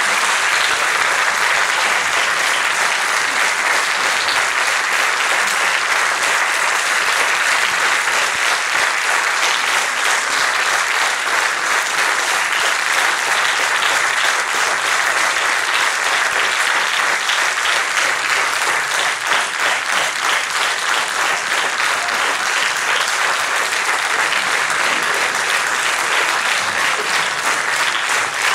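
Audience applauding continuously: dense, steady clapping that begins to pulse in loudness over the last third.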